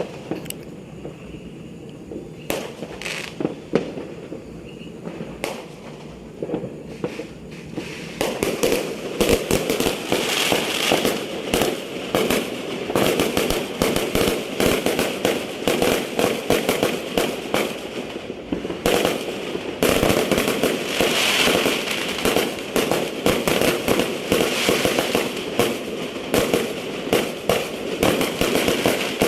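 Fireworks and firecrackers going off: scattered single bangs at first, then from about eight seconds in a dense, continuous crackle of many explosions, thinning briefly a little past the middle.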